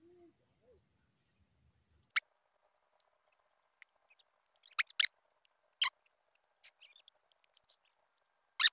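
About seven short, sharp clicks at uneven intervals, starting about two seconds in, against near silence. The loudest come about two seconds in, a close pair around five seconds, and one near the end.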